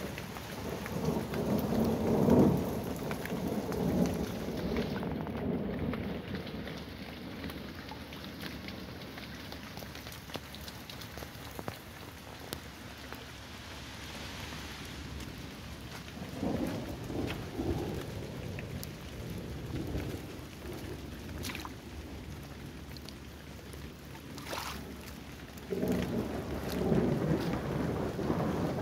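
Heavy rain pouring steadily, with rumbles of thunder at the start, again in the middle and once more near the end.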